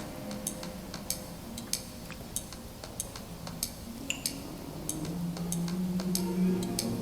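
Background music in a sparse passage: a light, evenly spaced ticking beat about every 0.6 seconds, with a low held note coming in about five seconds in.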